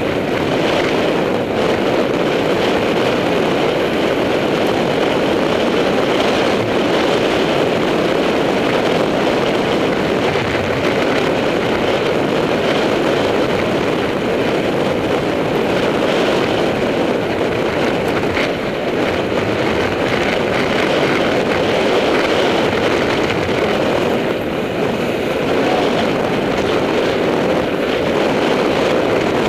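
Steady rush of wind over a bike-mounted camera's microphone, mixed with mountain-bike tyres rolling on a loose, dusty dirt road while riding fast.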